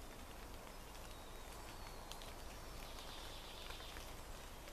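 Faint outdoor woodland ambience: a steady hiss with a few scattered light ticks.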